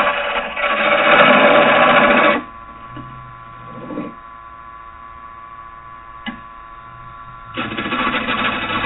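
Square carbide rougher cutting green oak on a spinning wood lathe at 850 RPM, a loud rough cut that tears out the wood. About two and a half seconds in the tool comes off the wood and only the lathe's steady motor hum remains, with a small click around six seconds; the cut starts again near the end.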